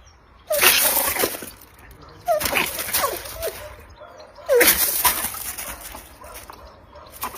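Water splashing in three loud bursts, about two seconds apart, with short sliding vocal sounds over them.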